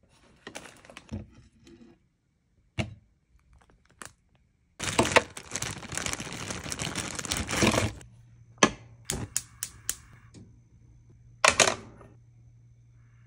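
A metal hot sandwich maker being handled: clacks and clicks of its plates and lid, then a plastic bag of frozen hash browns rustling loudly for about three seconds. After that come a string of sharp clicks and knocks over a steady low hum.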